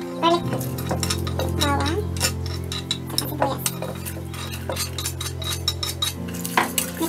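Chopped onion and garlic tipped from a wooden cutting board into a stainless steel saucepan of sauce, with many light taps and clinks of the board and wire whisk against the pan.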